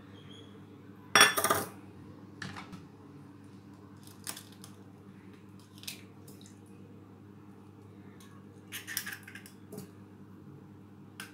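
Eggs being cracked into a bowl, with sharp clinks and knocks of bowls and utensils. The loudest clatter comes about a second in, followed by several lighter clicks.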